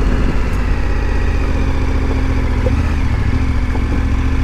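KTM 1290 Super Adventure R's V-twin engine running steadily, with a slight shift in pitch about three seconds in.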